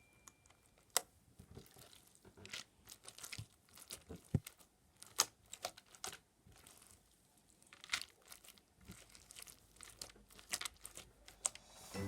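Slime being handled, giving irregular sticky crackles, pops and clicks.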